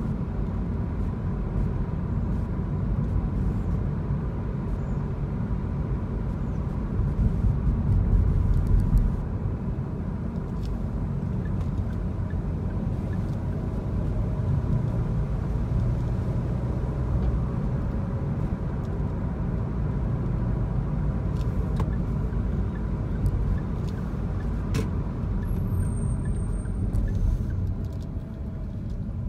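Cabin noise of a car driving on a city street: a steady low rumble of engine and tyres, swelling briefly about eight seconds in and easing off near the end as the car slows.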